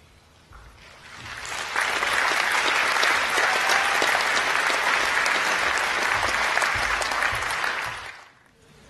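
Audience applauding: the clapping builds over the first two seconds, holds steady, then dies away about a second before the end.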